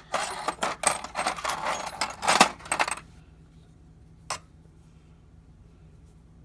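Small metal tools clinking and rattling against each other as they are handled in a drawer of a machinist's tool box, for about three seconds, then a single sharp click.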